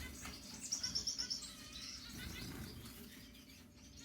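Small cage birds chirping faintly, with a quick trill of high repeated notes about a second in.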